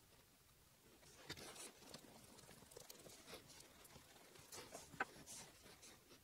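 Near silence with faint scraping and light taps of a wooden stick stirring epoxy glue on a wooden board, and one sharper click about five seconds in.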